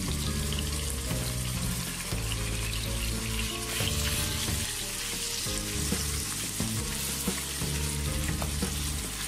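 Cubed chicken sizzling steadily as it fries in hot oil in a pan, with background music underneath.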